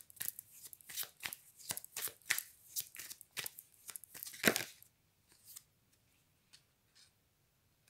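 A deck of large Dixit picture cards being shuffled: a quick, irregular run of crisp card snaps, the loudest about four and a half seconds in, then only a few faint taps.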